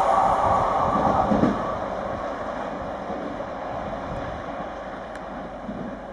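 Model train running on a layout, its motor and wheels on the track loudest for about the first second and a half, then fading as it moves away over a steady background noise.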